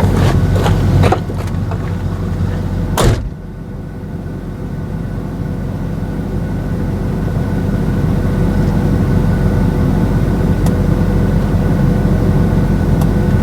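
Vehicle cabin: a few knocks and a sharp thunk about three seconds in, then the car's engine and road noise building steadily as it drives off.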